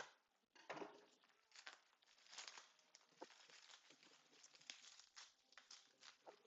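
Faint, irregular crinkling and crackling of wrapping being torn and pulled open by hand, with a sharp click at the start.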